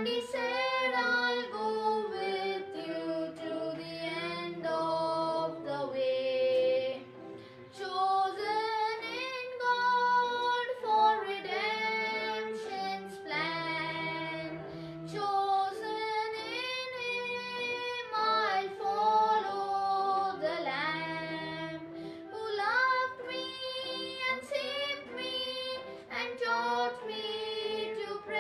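A boy singing a hymn solo in a clear treble voice, phrase after phrase of a slow melody.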